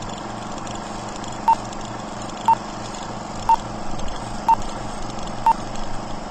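Film-leader countdown beeps: a short, high beep about once a second, five in all, over a steady hiss with faint crackle.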